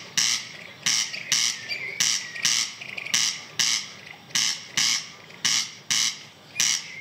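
Male corncrake singing its territorial song: dry, rasping paired notes ('crex crex'), the two rasps about half a second apart and the pair repeated steadily about once a second.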